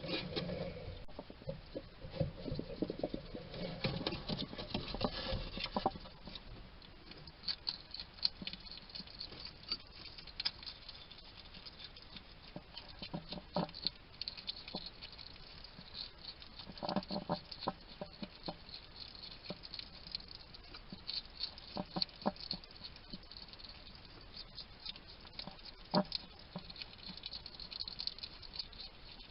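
Wild hedgehog eating at a feeding station: wet chewing and crunching of food, with small vocal chatter-like noises. The sounds are dense for the first few seconds, then come as scattered crunches and clicks.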